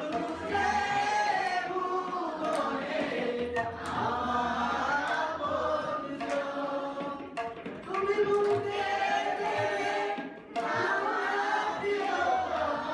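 A man singing a song into a microphone, accompanied by tabla, with the hall's echo around the voice.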